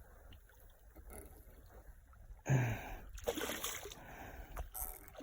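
Water splashing and sloshing around a canoe, with a sudden loud thump on the hull about halfway through followed by a few shorter splashes, while a hooked snook tows the canoe.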